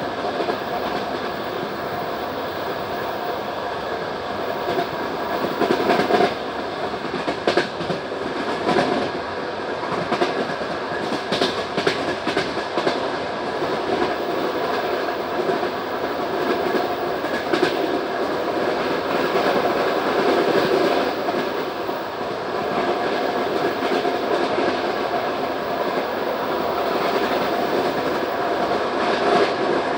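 Passenger train coach running along the track, heard from on board: a steady rumble with irregular clicks and knocks of the wheels over the rail joints.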